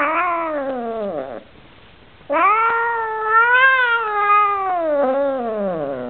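Oriental Shorthair cat yowling in complaint. One drawn-out yowl ends about a second and a half in. About a second later a long yowl of nearly four seconds follows, rising a little in pitch and then falling away at the end.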